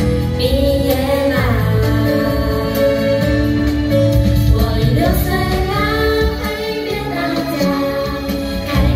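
A song playing: a female voice singing a melody over a steady backing track.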